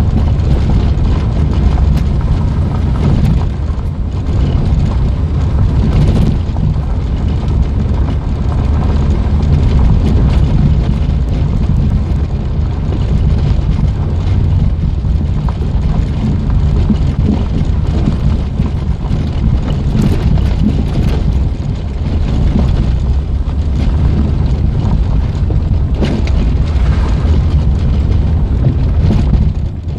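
Peugeot 205 1.6 petrol four-cylinder engine pulling the car along a rough gravel road, heard from inside the cabin, with steady low tyre rumble and occasional knocks and rattles from the bumpy surface.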